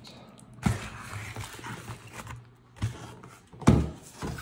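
Cardboard shipping box and a shrink-wrapped, paper-sleeved Bible being handled and set down on a wooden table: about four knocks and thumps with scraping and rustling between them, the loudest thump near the end.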